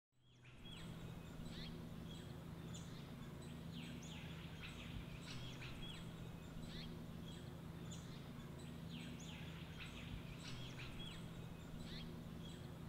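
Faint ambience of many birds calling, short quick downward-sweeping calls repeated through, over a low steady hum.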